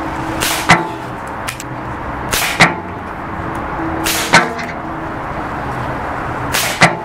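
Diana Stormrider Gen 2 .177 PCP air rifle firing four shots about two seconds apart, each a sharp crack, with 6.8-grain Gamo Armor pellets going out at about 1,000 feet per second.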